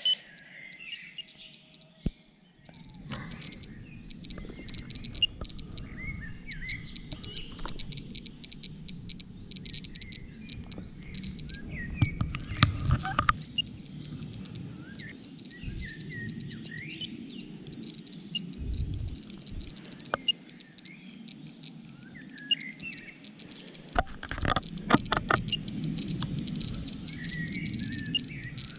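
Small songbirds chirping repeatedly in woodland, with a low rumble underneath and a few sharp knocks from handling of handheld radiation instruments, loudest about a dozen seconds in and again near the end.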